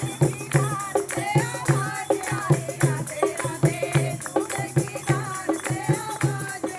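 Hindi devotional bhajan: a singing voice over a steady quick beat with jingling percussion like a tambourine or rattle.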